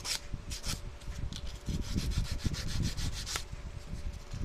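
Sandpaper rubbed quickly back and forth across the metal blade terminals of an automotive horn relay, to clean the contacts. The strokes come in short runs of several a second with brief pauses between them.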